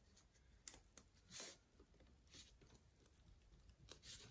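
Near silence with a few faint clicks and soft brushing sounds from a thin perforated metal sheet being rolled and bent by hand around a roll of duct tape.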